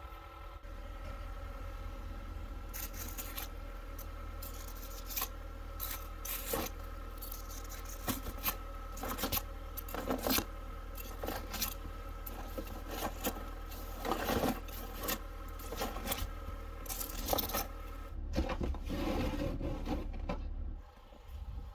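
Honda Element's four-cylinder engine idling steadily while snow and ice are scraped off the car in many short strokes. Near the end, the wipers drag over the iced windshield.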